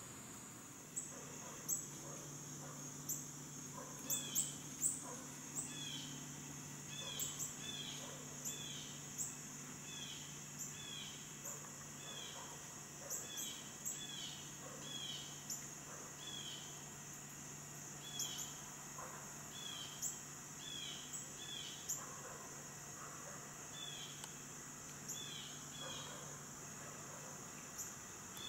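Woodland ambience: a steady high insect drone, with a bird calling over it in short falling chirps many times, often two in quick succession. A faint low hum runs underneath and fades out near the end.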